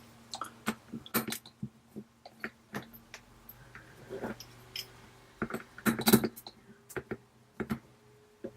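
Scattered light clicks and taps of a small tri-wing screwdriver working the tiny screws of an iPhone 8's home-button bracket. The loudest cluster of clicks comes about six seconds in.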